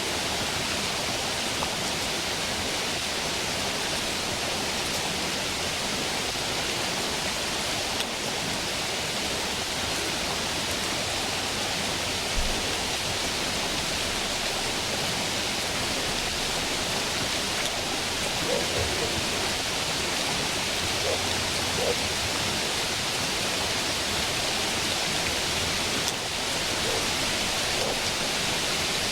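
Stream water rushing with a steady, even hiss that barely changes.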